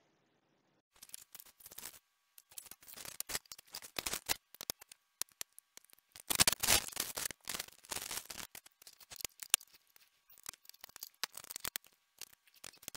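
Quick clicks, taps and plastic rustling from small parts and a bag being handled while a desktop laser engraver is put together with a small screwdriver. It is sped up in time lapse and starts about a second in.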